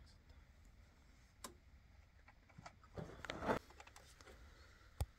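Faint, scattered clicks of tools and small parts being handled during hand work on a car's hydraulic suspension, with a short scraping rustle about three seconds in and a sharp click near the end.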